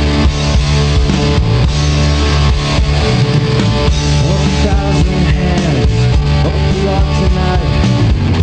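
Rock band playing live and loud: electric guitars over a driving drum kit, punk-rock style.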